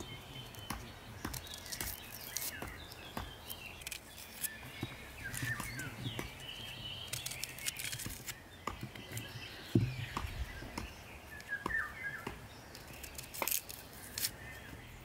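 Potato being peeled with a small kitchen knife: short, irregular clicks and scrapes of the blade cutting through the skin. Birds chirp in the background, and a single dull thump sounds about ten seconds in.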